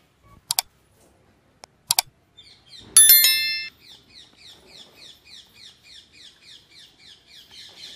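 Two short, sharp clicks in the first two seconds, then a loud, brief ringing sound about three seconds in. After it a bird chirps over and over, short falling chirps at about three a second.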